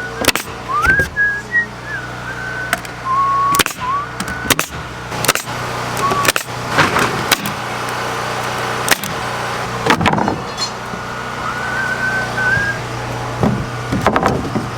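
Roof sheathing boards being fastened down: irregular sharp knocks over a steady low machine hum, with a few short whistled notes.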